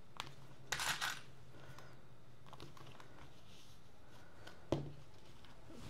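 Quilted fabric and vinyl bag layers rustling briefly as they are handled and smoothed, with a few faint ticks and one sharp click near the end, over a low steady hum.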